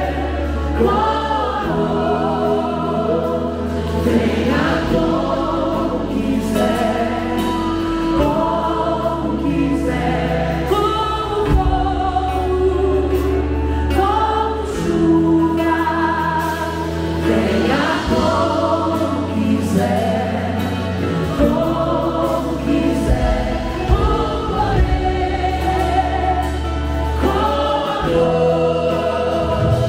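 Live worship band playing a Portuguese-language worship song, with a woman singing lead over acoustic and electric guitars and sustained bass notes, and many voices singing along.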